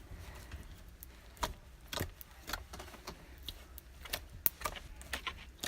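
Orange glitter-glue slime being squished and stretched by hand, giving off irregular small clicks and pops.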